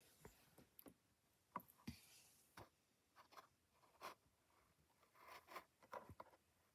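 Faint, scattered light taps and crinkles of a toy car's cardboard-and-plastic blister pack being handled.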